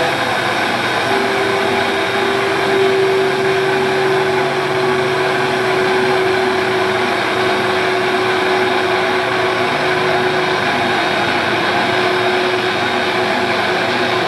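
Heavily distorted electric guitars and bass played live at high volume as a dense, steady drone, with one note held from about a second in almost to the end.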